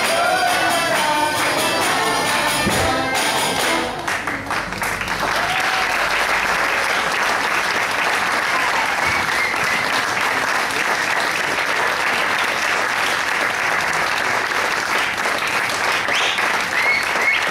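Music with singing ends about four seconds in, and an audience applauds steadily for the rest, with a few shouts or whistles mixed in.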